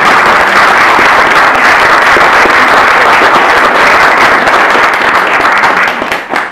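A crowd of people applauding, loud and dense, starting at once and dying away near the end.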